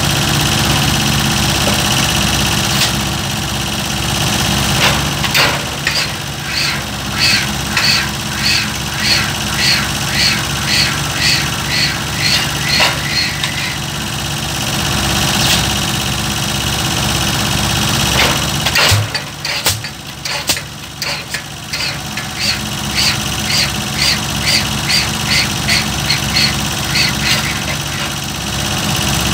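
Pile hammer striking the head of a square concrete pile in a steady rhythm of about two blows a second, in two runs with a pause of a few seconds between. The piling rig's diesel engine runs underneath throughout.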